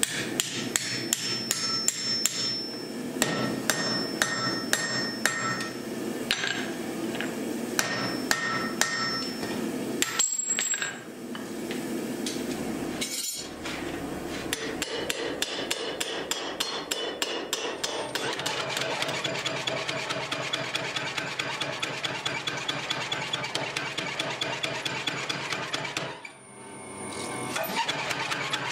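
Hand hammer striking red-hot axe steel on an anvil, about two blows a second, each followed by a metallic ring. After a short break, much faster and closer-spaced hammer blows continue, and near the end come the rapid blows of a power hammer on the hot steel.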